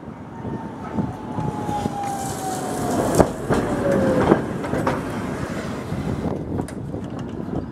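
Tatra T3 tram passing on the street tracks: rolling rumble that swells and fades, under a whine that slowly falls in pitch over about four seconds. Two sharp wheel clacks over the rail joints come about three seconds in, a second apart.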